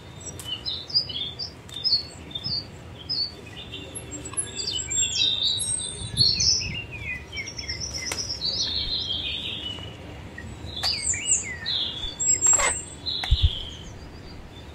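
Small birds chirping in many quick, high calls, some sliding downward in pitch. Over them come a few sharp snaps as green leaves are torn off the plants by hand.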